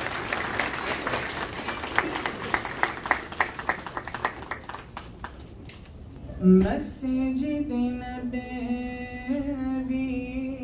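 Audience applauding, thinning out after about five seconds. About six and a half seconds in there is a loud thump, then a man begins singing a naat into a handheld microphone in long held notes.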